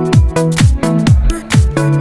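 Background electronic dance music: a steady kick drum about twice a second under held synth chords.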